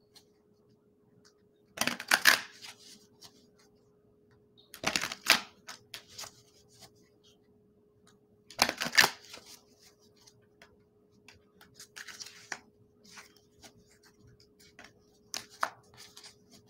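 Tarot cards being shuffled in three short rustling bursts a few seconds apart, followed by fainter clicks and rustles as the cards are handled, over a faint steady hum.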